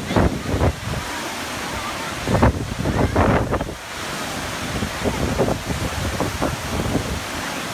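Steady rush of man-made waterfalls cascading down an artificial rock volcano into a pool. Gusts of wind buffet the microphone at the start and again about two and a half seconds in.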